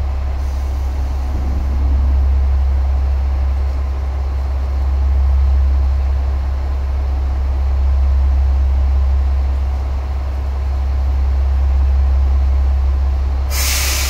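JR Shikoku Class 1000 diesel railcar idling at a platform with a steady, loud low rumble. Near the end comes a short, loud hiss of air, typical of the air brakes releasing just before the train departs.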